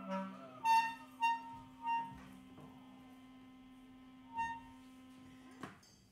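Closing moments of a sparse free-improvised piece: a few soft vibraphone notes ring out and die away one by one over a faint held low tone. The low tone cuts off with a click near the end, leaving the room almost silent.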